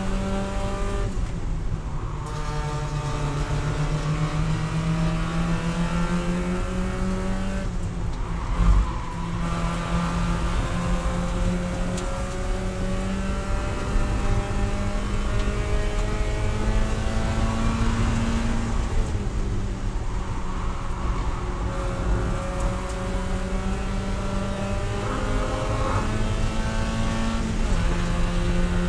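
Spec Miata's Mazda four-cylinder engine heard from inside the cockpit, running hard at high revs under racing load. Its pitch dips and climbs again a few times. A single sharp thump comes about nine seconds in.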